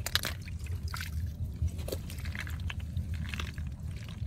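Hands scooping freshwater snails out of shallow muddy water on a fishing net: small wet splashes and scattered clicks of snail shells knocking together, over a steady low rumble.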